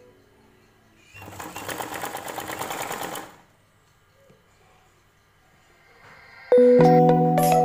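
A domestic sewing machine running a short burst of rapid stitches for about two seconds, then stopping. Background music with steady keyboard-like notes comes in loudly near the end.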